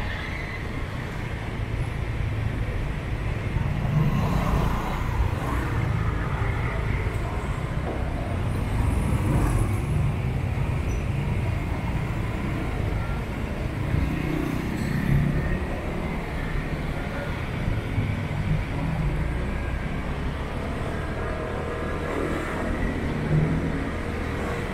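Car driving through town traffic: a steady low engine and road rumble that swells a little now and then.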